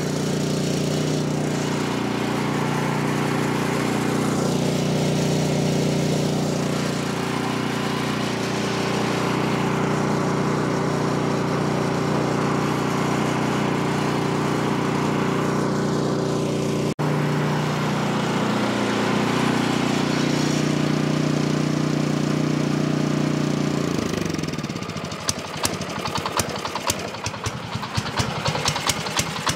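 Ariens Snow-Tek 24 snowblower's LCT single-cylinder four-stroke engine running at a steady speed on half choke with no surging, its carburettor main jet freshly cleared with a micro drill bit to cure a surge; it sounds better. About 24 seconds in the speed drops, and it settles into a slower run where the separate firing beats can be heard.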